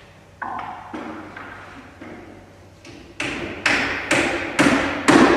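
Hammer blows on the timber of a wooden boat under construction: a couple of softer knocks in the first second, then from about three seconds in five blows at about two a second, growing louder.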